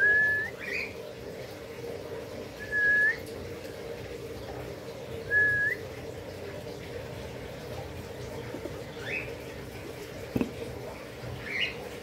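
Cockatiel whistling three times, each call about half a second long, held level then flicking up at the end, with a few shorter chirps in between and a single click near the end.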